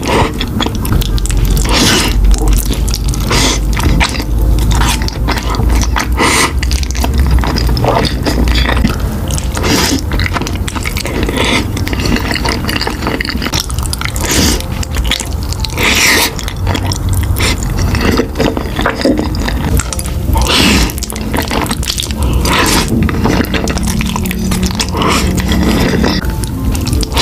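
Close-miked eating of creamy pasta: wet slurps of sauce-coated noodles and chewing, with many sharp wet mouth clicks.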